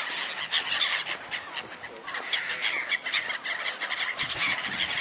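A large flock of gulls calling all at once: a dense, continuous chorus of short, high cries from many birds, excited as they are being fed.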